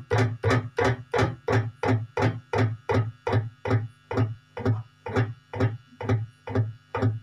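Stratocaster-style electric guitar played as a chugging, evenly repeated stroke on the low strings, imitating a single-cylinder diesel engine running. The beat slows gradually from about three strokes a second to about two.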